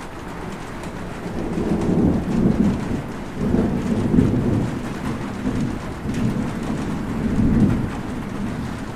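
Rain falling steadily, with low rolling thunder that builds about a second and a half in and rumbles on in several swells.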